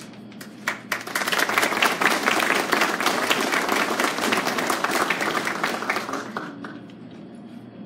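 Audience applauding: many hands clapping, swelling about a second in and dying away after about six seconds.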